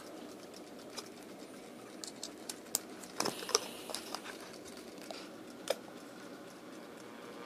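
Small clicks and taps of a 9-volt battery being snapped onto a transistor clock radio's battery clip and pressed into its compartment, with a cluster of clicks about three seconds in and a single sharper click near the end.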